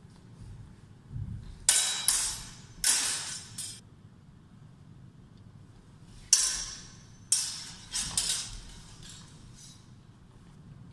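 Steel practice longswords clashing blade on blade: a quick run of four sharp metallic strikes about two seconds in, then another four from about six seconds, each ringing briefly.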